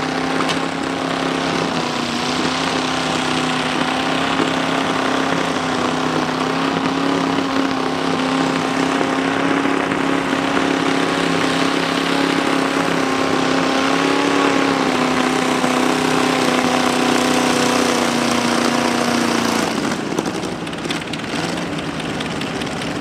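Antique John Deere tractor engine pulling hard at steady speed under the load of a weight-transfer sled. Its steady pitch holds until about 19 seconds in, then the engine note drops away as it comes off the throttle at the end of the pull.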